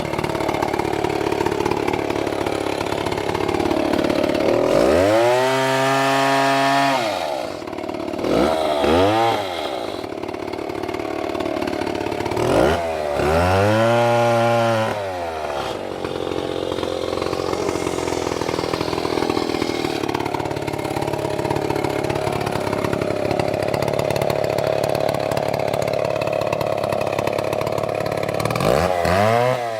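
Large two-stroke chainsaw cutting into a tree trunk under load. Its engine revs up and back down about five seconds in, again near nine and thirteen seconds, and once more at the very end.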